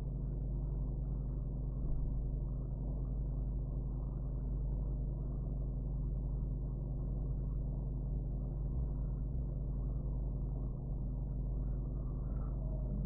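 Steady low hum with no distinct events.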